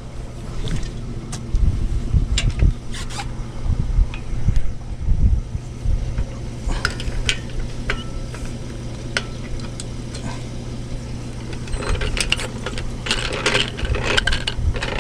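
A steady low engine hum at idle, with scattered sharp metallic clicks and clanks. The clanks grow busier near the end.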